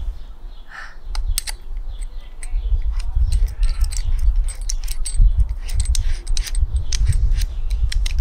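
A drill bit being fitted into the keyless chuck of a DeWalt cordless drill: a run of small, irregular metallic clicks and rattles from the bit and the chuck, over a low rumble.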